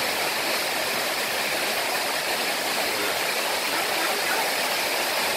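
A steady rushing hiss, even and unbroken.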